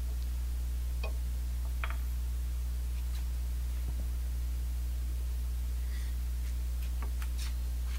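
A steady low hum with a handful of faint metal clicks, several close together near the end, from a hex key and bolts being worked into motorcycle crash bar mounts.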